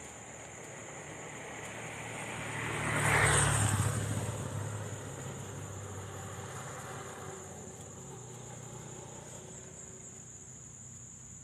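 A road vehicle passing by: its engine hum and road noise swell to a peak about three seconds in, then fade away slowly. A steady high insect trill runs underneath.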